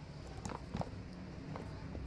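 Hands handling a small earbuds retail box, giving a few light taps and clicks against a low background hum.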